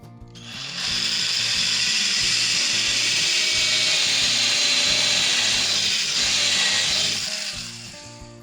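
A workshop tool running steadily with a hissing whir that fades in during the first second and fades out near the end.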